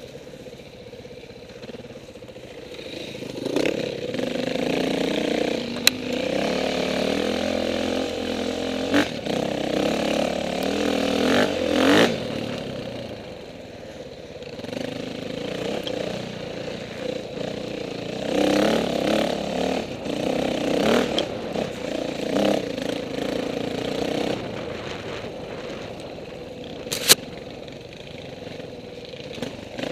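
KTM 450 dirt bike engine revving up and down, surging and easing off again and again as the throttle is worked over rough ground. A few sharp knocks and clatter cut through, the loudest near the end.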